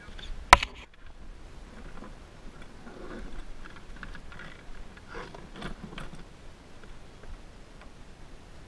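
A single sharp click about half a second in, then scattered light taps, clicks and rustles of a freshly netted fluke being handled with a landing net on a plastic kayak.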